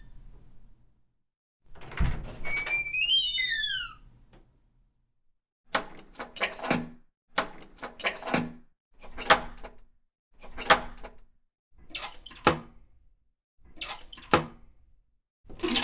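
A door: a thud with a squeaky hinge gliding up and down in pitch, then a pause and a run of about seven short clattering knocks and rattles, one every second and a half or so.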